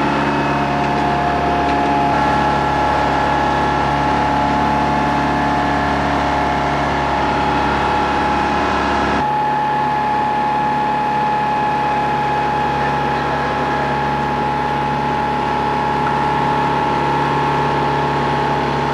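A sailboat's auxiliary engine running steadily at constant speed while motoring, a loud even drone with a fixed pitch. About nine seconds in, the sound changes abruptly and turns duller, though the same drone carries on.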